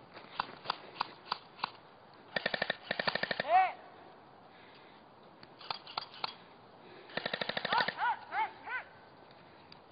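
Airsoft electric guns firing: a few single shots, then rapid full-auto strings at about fifteen shots a second, twice. Each burst is followed by short high yelled calls.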